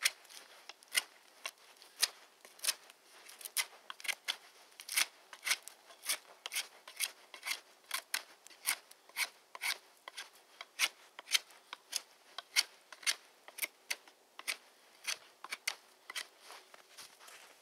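Small scandi-ground carbon-steel knife blade shaving a half-frozen, half-rotten wooden stick, cutting a point in short repeated strokes, about two a second, each a crisp scrape.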